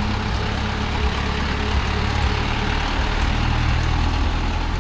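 Engine of a medium-size bus running with a steady low rumble as the bus pulls out, rising a little in loudness toward the middle.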